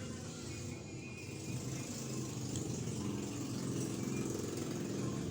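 Background music, low and steady, with no clear beat standing out.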